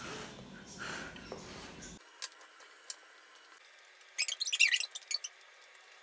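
Wooden chopsticks clicking against a steel tray and a ceramic bowl: a couple of single light taps, then a quick cluster of clicks about four seconds in.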